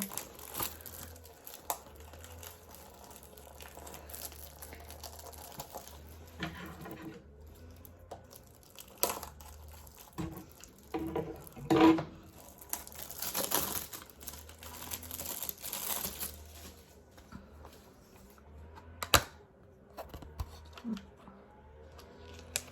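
LEGO set's cardboard box being torn open and its packaging handled: short bursts of tearing and crinkling with scattered clicks and knocks, the longest rustle about halfway through and a sharp click a few seconds later.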